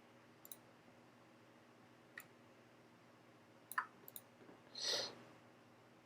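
Faint computer mouse clicks, a few scattered over several seconds, with a brief soft hiss about five seconds in, over a low steady hum.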